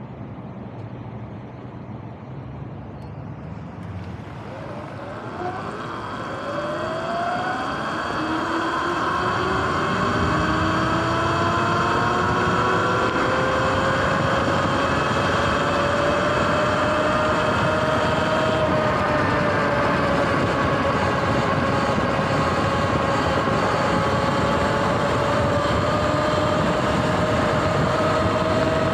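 Sur-Ron X electric dirt bike pulling away from a stop: about five seconds in, its motor whine rises in pitch as it gathers speed, then holds at cruising speed, wavering slightly, with wind rushing over the microphone.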